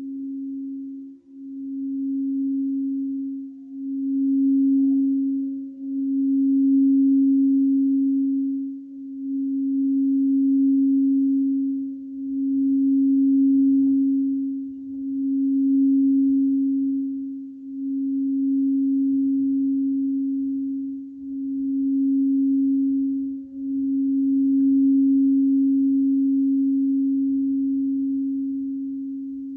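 Crystal singing bowl rubbed around its rim, giving one sustained pure tone that swells and dips every two to three seconds.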